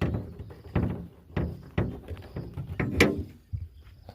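A run of knocks and clunks, about seven, the loudest about three seconds in: a Mercedes W246 B-Class's bonnet being opened and its engine bay uncovered.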